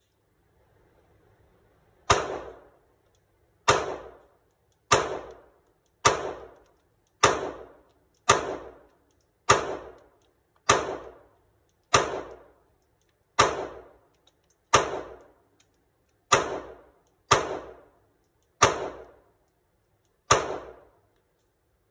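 Handgun fired in slow, aimed single shots, about fifteen rounds at roughly one shot a second, starting about two seconds in. Each report is sharp and echoes briefly off the walls of an indoor range.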